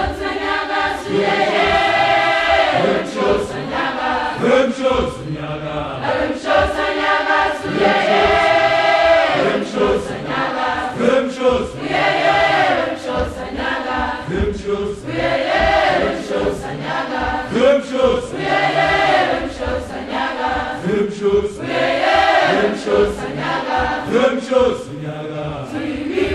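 A choir singing a chant-like song in harmony, phrase after phrase.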